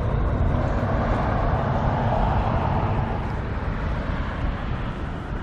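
Outdoor road traffic noise: a vehicle passing, swelling and then fading over a steady low rumble.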